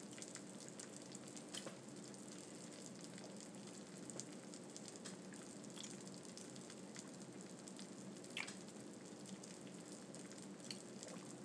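Faint steady background hiss and hum with a few soft, scattered clicks.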